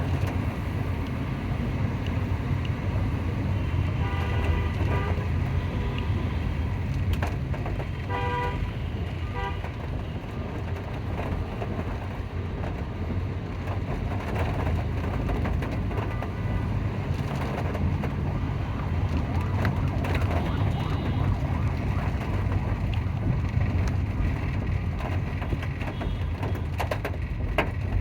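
Steady rain mixed with a continuous rumble of street traffic. Vehicle horns sound about four seconds in and again around eight seconds in.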